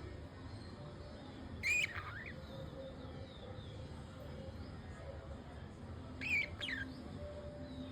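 Pet budgerigars calling: two short squawking chirps with bending pitch, one about two seconds in and one near the end, over a steady background hiss and softer faint chirps.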